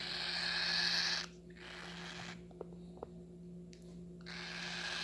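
Cockatiel chick making raspy, hissing food-begging calls while being hand-fed, in long stretches with a pause in the middle. Two small clicks during the pause.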